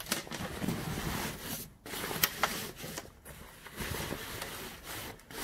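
Fabric rustling and scraping as soft bags and rain gear are pushed into a motorcycle's hard saddlebag, with a couple of sharp clicks a little after two seconds in.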